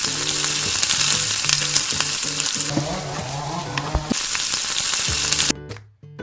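Chicken sizzling loudly in a pan as the coconut-milk adobo sauce cooks down to a thick, oily finish. The sizzle eases for a moment midway and cuts off abruptly about five and a half seconds in.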